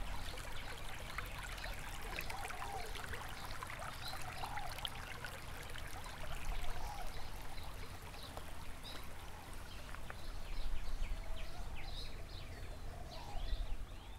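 Ambient water sound, like a trickling stream, with scattered short chirps over a steady low hum.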